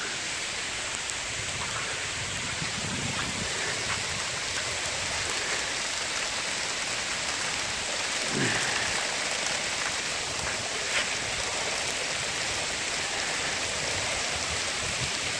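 Sleet and small hail falling steadily, a continuous hissing patter of pellets on a car's body and the ground, with faint scattered ticks.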